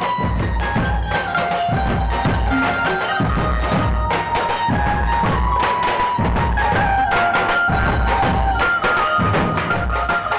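Chhattisgarhi dhumal band playing loudly through a street sound system of stacked horn speakers: big drums beat a steady, heavy rhythm under a melody of held notes that steps up and down.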